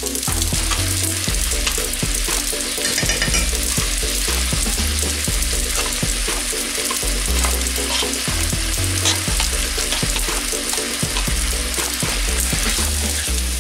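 Pork fillet and vegetables sizzling steadily in a hot frying pan, with scattered clicks and scrapes as crème fraîche is spooned in.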